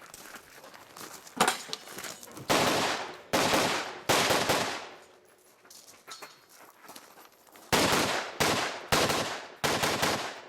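Semi-automatic AR-style rifle firing about nine shots in two quick strings, four then five, with a pause of about three seconds between. Each shot rings out with a long echo.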